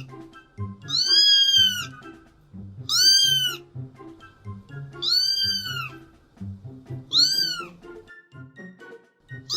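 Kitten meowing four times, about every two seconds, each a high call that rises and then falls in pitch. Background music plays underneath.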